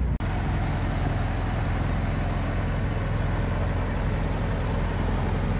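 FSO Polonez engine idling steadily, running again after a push-start.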